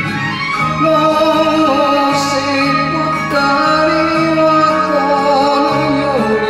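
A man singing a slow enka melody in Japanese over a karaoke backing track, holding long notes with vibrato.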